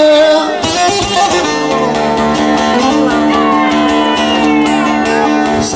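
Bağlama (Turkish long-necked saz) picked in a rapid instrumental interlude over steady held low notes. The singing voice trails off just at the start and comes back at the very end.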